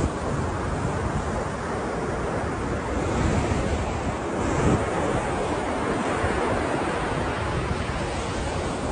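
Ocean surf: a steady wash of waves, swelling louder about three to five seconds in as a wave breaks.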